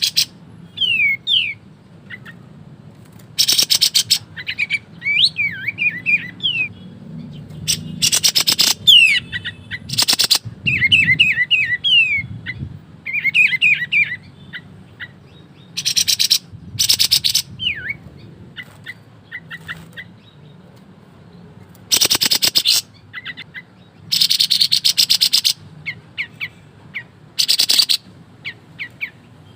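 A kapas tembak bulbul singing in its rapid 'ngebren' style. It makes about seven loud, buzzy rattling bursts of half a second to a second and a half each. Between the bursts come short, quick, sliding whistled chirps.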